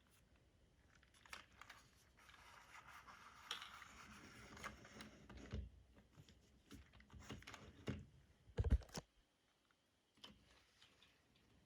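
Plastic LEGO bricks being handled and fitted together: scattered small clicks, a stretch of rummaging rattle through loose pieces, and a couple of sharper knocks about three-quarters of the way through.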